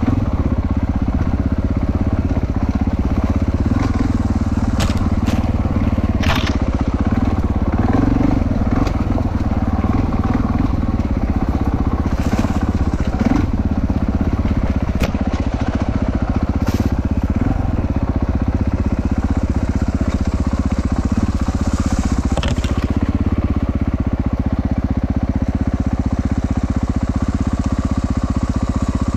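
450 cc four-stroke enduro motorcycle engine running steadily at low speed over a rocky trail, with rocks crunching and scattered sharp knocks and clatters from the wheels and chassis.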